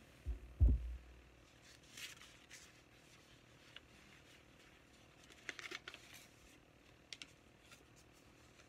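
Two low thumps about half a second apart near the start, then faint rustling and clicking of hymnal pages being leafed through.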